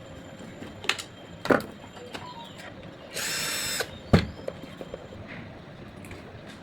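Knocks and clicks of hand work on a table fan motor, with three sharp knocks, the loudest about four seconds in, and a short burst of hiss lasting about half a second just after three seconds in.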